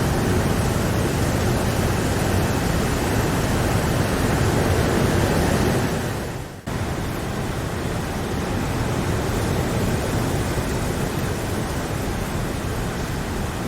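Steady rain making an even hiss. About halfway through it fades briefly and cuts out for a moment, then resumes slightly quieter: a splice in the recording.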